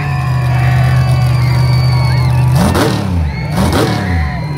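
Monster truck engine idling with a steady low drone, blipped up and back down twice in quick succession in the second half.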